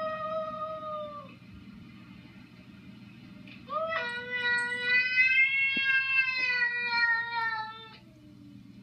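A cat meowing: one long meow that fades out about a second in, then a much longer, drawn-out meow starting about three and a half seconds in and lasting over four seconds.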